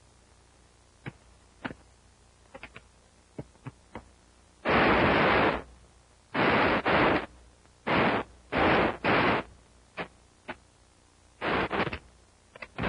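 Revolver shots in a gunfight on an old film soundtrack: about eight loud, distorted blasts from about five seconds in, some in quick pairs. Before them come a few light knocks and thuds of a scuffle.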